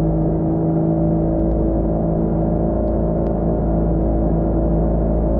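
Boat motor running steadily at constant speed, a low drone with a steady hum.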